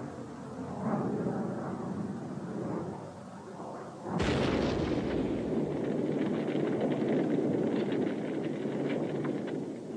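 An air-to-air missile fired from a jet fighter. After a few seconds of steady jet noise, the rocket motor ignites with a sudden blast about four seconds in, then carries on as a sustained, crackling roar.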